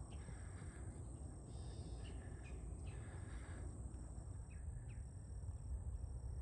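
Lakeshore ambience: a low steady rumble with scattered faint bird chirps and a steady high insect buzz pulsing at an even rhythm.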